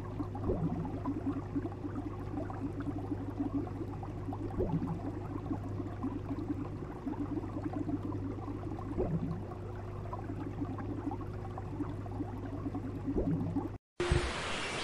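Aquarium tank sound: a steady electrical hum with water bubbling and churning, and a faint short sound about every four seconds. It cuts off abruptly near the end.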